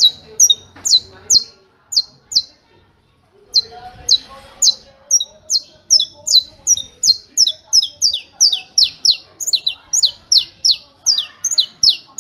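Saffron finch (canário-da-terra) singing a "martelo" (hammer) song: a long run of sharp, high, down-slurred notes, at first a little over two a second. After a short pause about two and a half seconds in, the notes come faster, about three a second.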